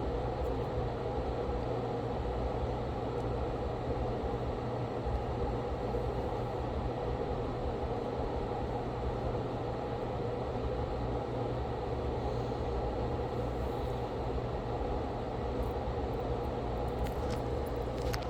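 Steady fan whir and hum of soldering-bench equipment running without a break.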